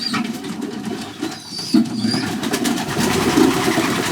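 A loft of young racing pigeons cooing together in a continuous low, overlapping murmur, with a few short high squeaks.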